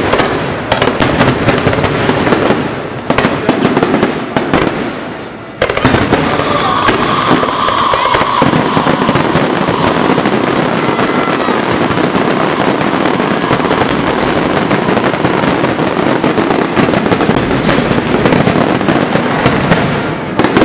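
Fireworks display going off: rapid bangs and crackling in dense succession, with a short lull about five seconds in, then an unbroken crackling barrage.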